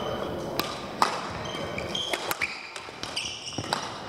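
Badminton play: sharp racket-on-shuttlecock hits, the loudest about a second in, mixed with court shoes briefly squeaking on the hall floor several times.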